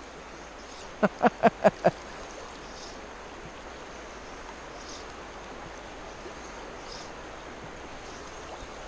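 Creek water flowing steadily, a constant rush. About a second in, five quick, short pitched sounds come in a row, each dropping slightly in pitch, all within about a second.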